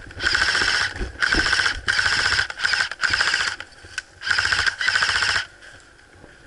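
Airsoft rifle firing full-auto bursts, a fast mechanical buzzing rattle; about seven short bursts in quick succession, stopping about five and a half seconds in.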